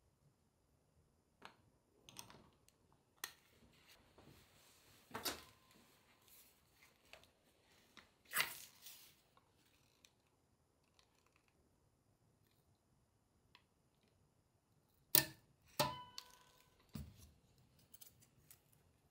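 Sparse handling noises: light taps and knocks as a dark board and a foam cutter are picked up, turned and set down on a cutting mat, with two sharper knocks about fifteen seconds in, the second leaving a brief ring.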